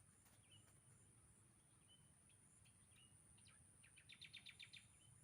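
Faint outdoor quiet with a small bird chirping now and then and a quick trill of about nine rapid notes near the end, over a thin steady high-pitched hum.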